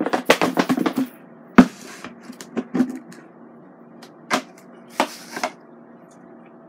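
Plastic breader shaker bowl being shaken with chicken wings and breading inside, a fast rattling patter that stops about a second in. A sharp knock follows as the bowl is set down, then a few lighter clicks and knocks as it is opened and the breaded wings are handled.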